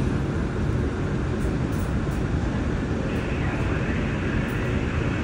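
J/Z subway train running on elevated track, heard from inside the car: a steady rumble of wheels and running gear, with a faint higher whine joining about three seconds in.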